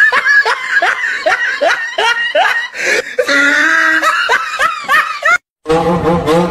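A person laughing hard in quick repeated rising bursts, which cut off suddenly about five seconds in. Music with a steady beat starts just after.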